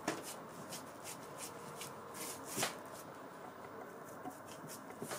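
Hands rolling a log of soft semolina dough filled with date paste on a tabletop: soft, repeated rubbing and patting. There is one sharper tap about two and a half seconds in.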